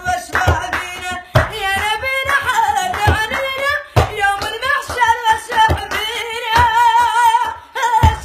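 A woman singing a Mauritanian madh, a praise song for the Prophet, in a wavering, ornamented melody, with sharp percussive beats struck at irregular intervals.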